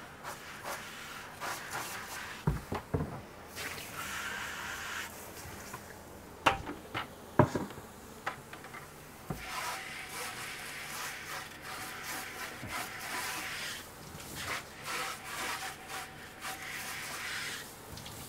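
Plastic buckets being rinsed in a sink: stretches of running water and rubbing against the bucket walls, with a few sharp knocks of the buckets against the sink.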